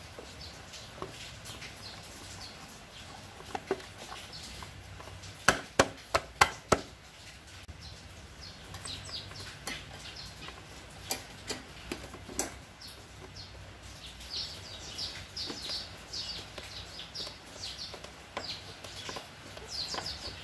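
Plastic side cover of a Honda EX5 motorcycle being pressed and clipped back onto the frame: a quick run of four sharp plastic clicks about five to seven seconds in, then scattered single taps and knocks. In the last six seconds, many short high chirps.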